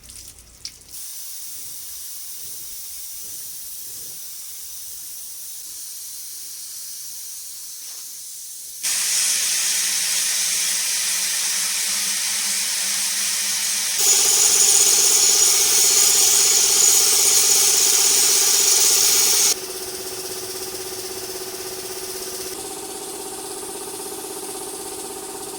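Compressed-air paint spray gun hissing steadily as paint is sprayed. It runs in stretches that jump abruptly in loudness: louder from about a third of the way in and loudest in the middle. In the last part a low steady hum sits under the hiss.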